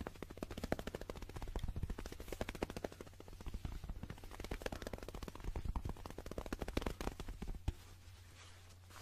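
Very fast fingertip tapping on a small handheld object close to a microphone, a rapid rattle of many taps a second coming in surges. The tapping stops with one sharper tap near the end.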